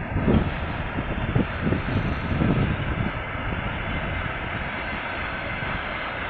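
A 2M62 twin-section diesel locomotive hauling a train of dump cars: a steady engine drone with wheel and car noise, under irregular gusts of wind buffeting the microphone.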